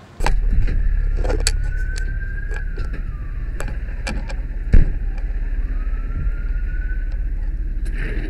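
Fire truck cab on the move: loud, steady engine and road rumble under a siren wailing up and down, with knocks and rattles and one heavy thump about halfway through.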